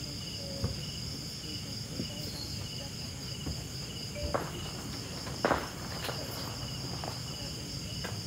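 Night insects chirping steadily: a continuous high trill with a second, pulsing chirp repeating about two to three times a second. A few short clicks and knocks come over it, the loudest about five and a half seconds in.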